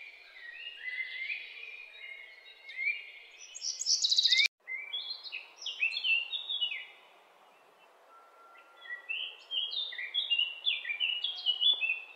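Birds chirping in quick runs of short, high notes over a faint steady outdoor hiss. The sound cuts out for an instant about four and a half seconds in, and there is a short lull a few seconds later.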